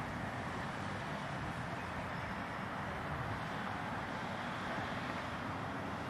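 Steady outdoor background noise: wind rumbling on the microphone over a constant hiss, with no distinct event.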